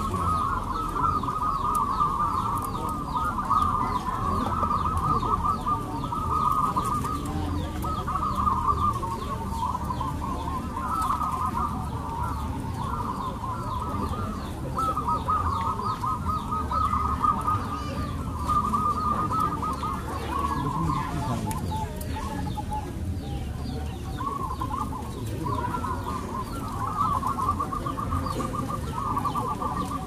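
A chorus of caged zebra doves (perkutut) cooing at once, many overlapping bouts of rapid staccato coos around one pitch, over a low background rumble.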